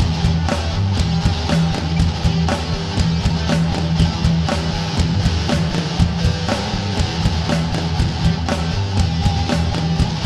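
Rock instrumental music: guitar over a steady drum beat and bass.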